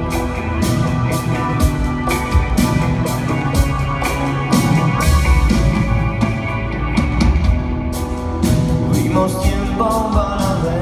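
A live rock band playing: electric guitar and keyboards over a drum kit keeping a steady beat of about two strikes a second.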